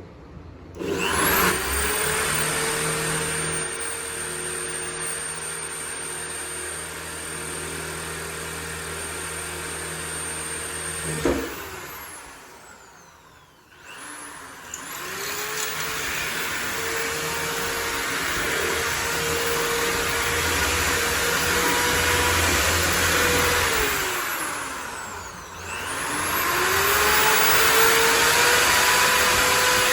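Electric hand drill with a small bit boring slowly into a clay pot, its motor whine over a gritty grinding hiss. It spins up about a second in, winds down and stops after about ten seconds, starts again a few seconds later, slows briefly near the end and speeds back up.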